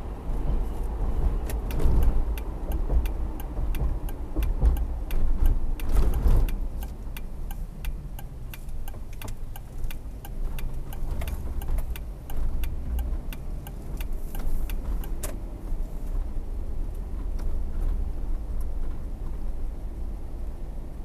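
Car driving, heard from inside the car: a steady low road and engine rumble with many irregular sharp ticks through most of the stretch, thinning out near the end.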